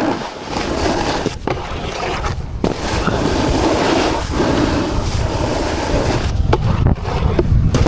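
Snowboard sliding and carving over packed snow, a loud continuous scraping rush mixed with wind on the microphone, briefly dropping out a few times.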